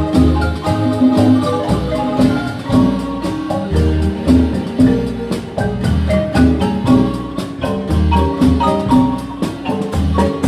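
Guatemalan marimba playing continuously, with deep bass notes prominent beneath the higher melody and chords.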